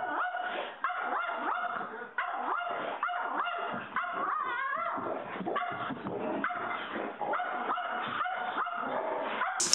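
A pug puppy yapping at a larger dog in a rapid run of high-pitched barks and yips, two or three a second, with a whining note around the middle.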